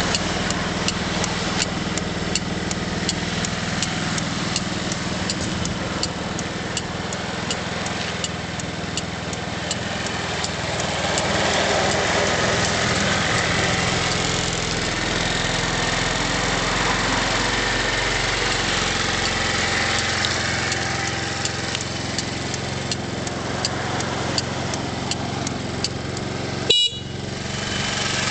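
Small 125 cc engine of a Quinky BTL125 idling steadily, with a light regular ticking. Near the end there is one brief, sharp high-pitched sound.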